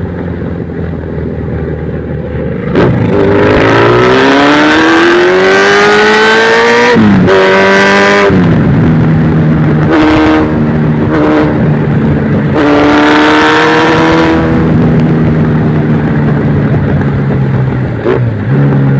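Yamaha XJR's four-cylinder engine, steady at first. About three seconds in it turns loud and climbs in pitch for several seconds, drops sharply at a shift and pulls up again. It climbs once more before settling to a steadier note, with a short blip near the end.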